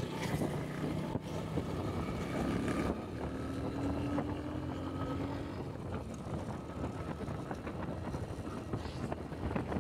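Small single-cylinder motorcycle engine of a Honda Pop 100 running at riding speed, heard from on board with wind rushing over the microphone. The engine note is clearest in the first three seconds, then sinks mostly under the wind and road noise.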